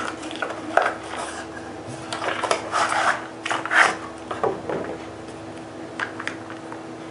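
Cardboard ammunition box being opened and a plastic cartridge tray of brass rounds slid out and set down: papery rubbing and scraping in several bursts, then a few light taps about six seconds in.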